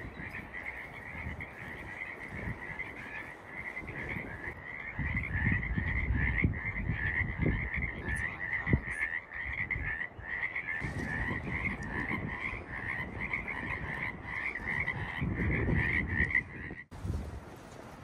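A chorus of frogs calling, many pulsing calls merged into a steady din that cuts off suddenly near the end. Low rumbling noise comes and goes beneath it.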